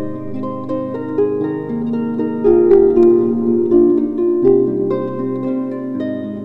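Background music: plucked, harp-like notes over held low tones.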